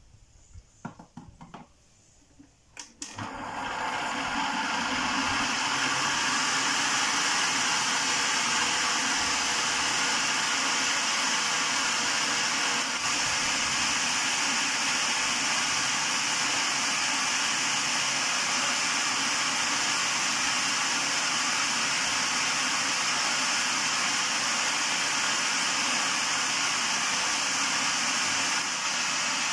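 A few light knocks, then about three seconds in an electric food processor's motor switches on and runs steadily, blending eggs and soybean oil into mayonnaise.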